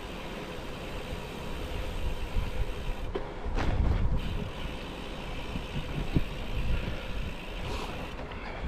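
Strong wind buffeting the microphone of a cyclist riding a gravel bike, with a louder gust about three and a half seconds in and a couple of light knocks from bumps in the road.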